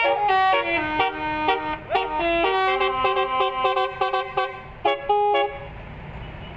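A bus's multi-note telolet horn playing a quick tune of short, stepping notes. It stops about five and a half seconds in, leaving a low background rumble.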